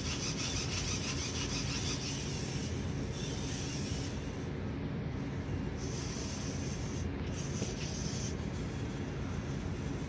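Hobby servo motors in a 3D-printed SpotMicro quadruped robot whirring in several short spells as it moves its legs, each spell starting and stopping abruptly, over a steady low noise.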